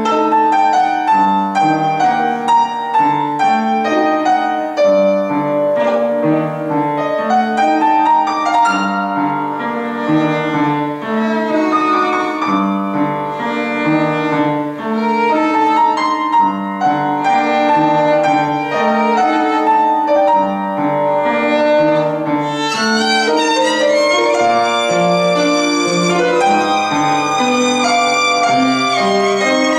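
Violin and upright piano playing an elegy together: the piano keeps up a steady rolling accompaniment under the violin's melody. About two-thirds of the way through, the melody climbs higher and grows brighter.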